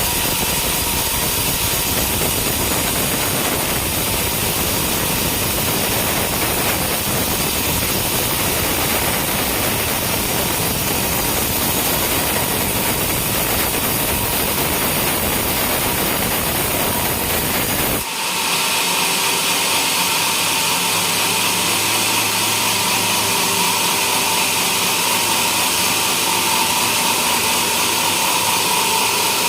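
Homemade sawmill cutting through a coconut palm trunk, a loud steady sawing noise over a running motor. About two-thirds of the way in the sound switches abruptly to a steadier, thinner whine with less low rumble.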